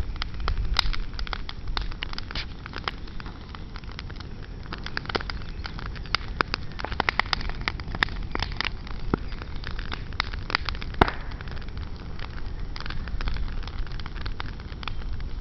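Garden bonfire of branches and green brush burning, with a continuous irregular crackling and sharp pops, a few standing out louder, about a second in, around eight seconds and around eleven seconds.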